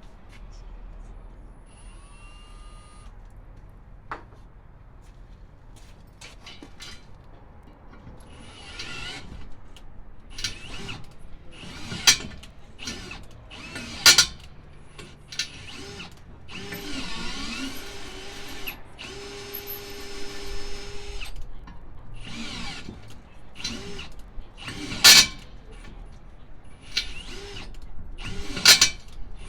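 Power drill running in two bursts of about two seconds each, midway through, among sharp metal clanks and knocks of tools and parts being handled.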